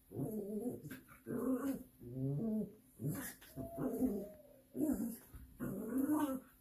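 Small dog growling in play-fighting: a string of about seven short growls, roughly one a second, while it wrestles.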